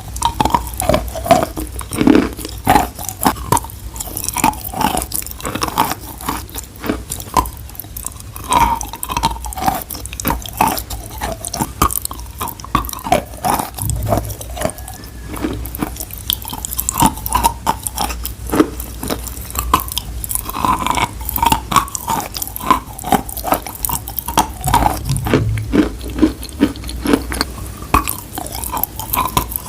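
Close-miked wet, crunchy mouth sounds: a dense, irregular run of sharp clicks and crackles, like chewing, with no rhythm.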